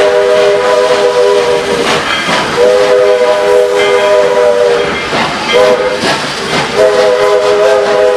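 Steam locomotive's chime whistle sounding the grade-crossing signal: two long blasts, one short, then a long one beginning near the end, each a steady chord of several notes. Under it runs the steady hiss and noise of the moving train.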